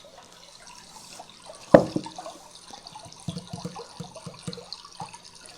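Small Bluetooth bedside speaker playing its built-in river-water white-noise track, a steady trickling wash. A sharp knock about two seconds in, the loudest sound, and a few softer taps a little later.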